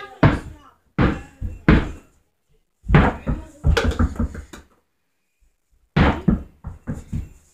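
A basketball being dribbled on a carpeted floor: dull thuds in irregular runs, with a quick run of bounces a few seconds in and another near the end.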